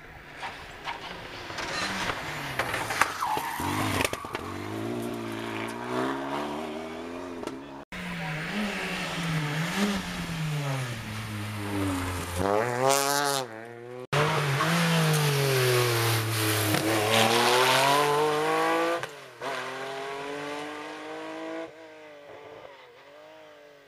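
Rally cars at full speed on a tarmac special stage, among them a Citroën DS3. Each engine's note climbs and drops again and again through gear changes as the car approaches and passes. The sound breaks off abruptly twice, about 8 and 14 seconds in, and fades near the end.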